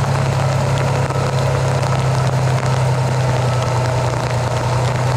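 Fire truck's engine idling steadily: an even, low drone.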